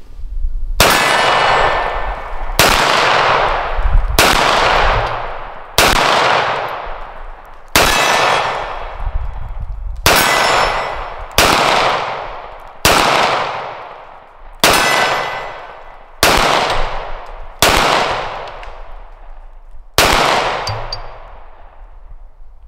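Springfield Armory SA-35 9mm pistol fired twelve times at a slow, steady pace, a shot every one and a half to two seconds. Each shot is followed by a long ringing decay.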